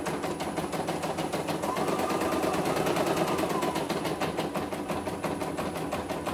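CNY E900 computerised embroidery machine stitching a design: a fast, steady clatter of needle strokes, with a faint whine that rises and falls about two seconds in.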